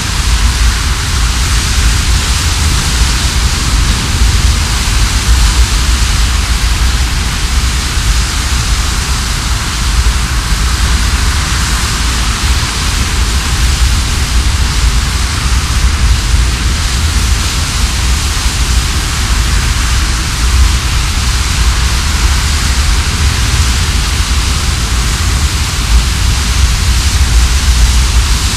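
Water rushing and churning along the hull of a car ferry under way, with wind blowing on the microphone: a loud, steady rush over a deep rumble.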